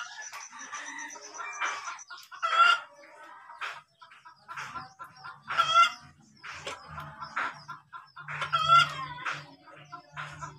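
Chickens clucking, with a loud call about every three seconds and smaller clucks between them.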